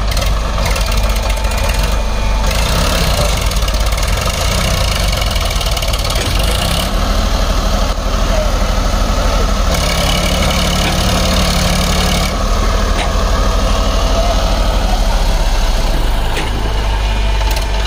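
Massey Ferguson 7250 DI tractor's three-cylinder diesel engine running under load as the tractor struggles to drive out of deep mud. The engine note shifts several times as the revs rise and fall, running harder for a couple of seconds about two-thirds of the way through.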